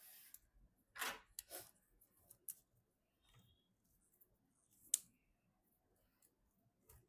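Quiet handling of PC hardware and parts: two soft rustling or scraping strokes about a second in, then scattered small ticks and one sharp click a little before the end.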